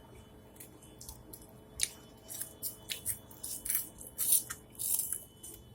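Food being bitten and chewed with the mouth alone: an irregular run of short, crisp crunches, thickest from about two seconds in to near the end.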